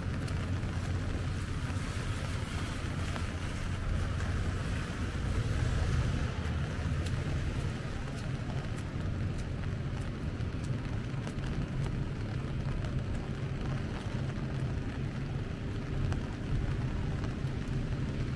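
Rainy city street ambience: steady traffic rumble with the hiss of tyres on wet road and falling rain.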